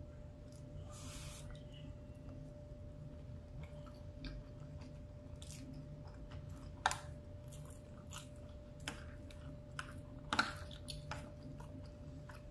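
A person chewing a mouthful of rice and beans, close up, with scattered sharp clicks; the loudest come about 7 and 10 seconds in.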